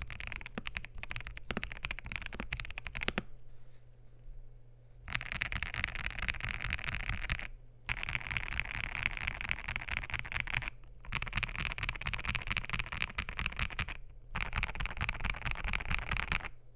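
Epomaker EK98 mechanical keyboard with lubed and filmed WS Morandi switches and ABS keycaps, typed on fast. The typing comes in runs of a few seconds with short pauses between them, the longest pause about three seconds in.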